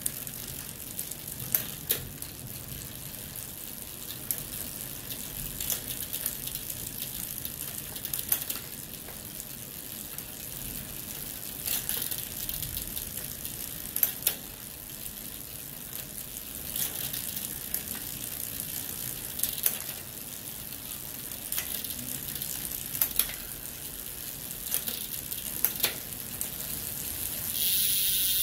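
Folding bike's rear wheel and chain spinning through the derailleur chain pusher's pulley wheels, making a steady whirring hiss with light ticks every second or two. A louder hiss starts near the end.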